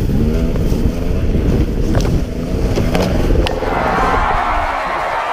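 Dirtbike engine running, mixed with heavy wind noise on a helmet camera, with a few sharp knocks about two, three and three and a half seconds in. Near the end the engine rumble fades and a brighter hiss takes over.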